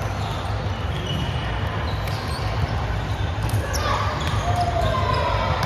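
Indoor volleyball game sound: distant voices from the court and short squeaks and knocks, over a steady low rumble.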